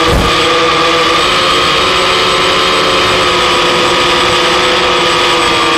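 Octocopter's eight electric motors and propellers whirring in flight, a loud, steady hum of several tones that drift slightly in pitch. A brief knock comes right at the start.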